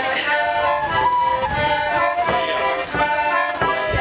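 A small button accordion and a wooden pipe playing a tune together, with a drum beat about every two-thirds of a second underneath.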